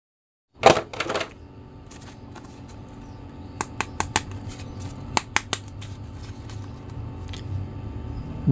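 Plastic Batman action figure being handled: a knock about half a second in and another just after, then scattered light plastic clicks and taps over faint room hiss.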